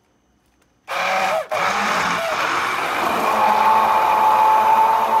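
Immersion blender switching on about a second in, stuttering once, then running steadily with a whine as it purées canned huitlacoche with broth, onions and garlic in a tall plastic beaker.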